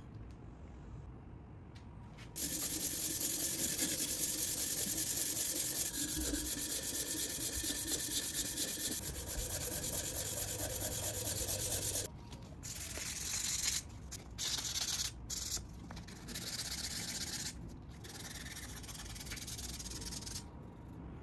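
Cast-iron sole of a Millers Falls No. 16 block plane being rubbed on an abrasive to flatten it. It makes a steady scratchy hiss for about ten seconds, then a run of shorter strokes with pauses between them.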